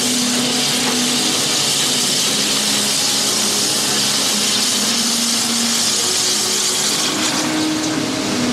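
A steady, loud hiss with a faint machine hum underneath that comes and goes.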